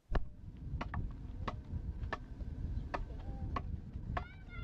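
A small adze chopping into wood, hollowing out the inside of a carved wooden helmet mask. Seven sharp strokes fall about one every two-thirds of a second over a low rumble, with a short chirp near the end.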